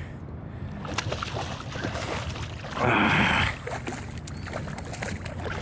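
Water sloshing and splashing beside a fishing kayak as a hooked bluefish is brought alongside, with a few small knocks and one louder splash about three seconds in.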